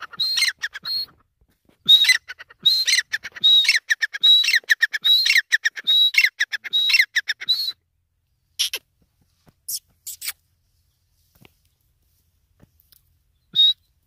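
Grey francolin (teetar) calling: a fast run of repeated high-pitched notes for about the first eight seconds, then a few scattered notes with long pauses.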